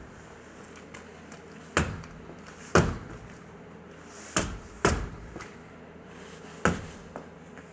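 Mercedes-Benz Vito wheel knocking: five sharp clunks at uneven intervals and a lighter one near the end. The knock is the sign of damage to the wheel or its mounting from hitting a curb.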